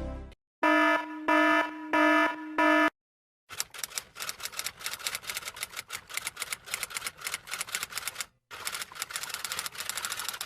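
Four short pitched beeps in a row, then typewriter keys clattering in rapid, uneven strikes for several seconds, pausing briefly before going on.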